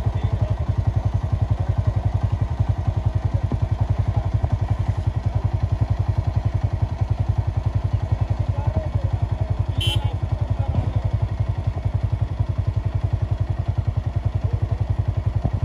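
Motorcycle engine running steadily at low revs, an even low throb. A brief sharp click about ten seconds in.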